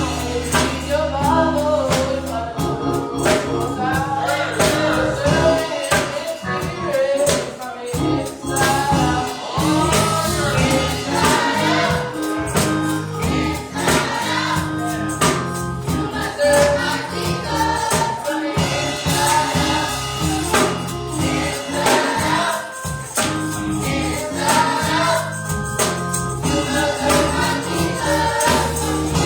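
Gospel music with a choir singing over a band, with bass and steady percussion that includes tambourine.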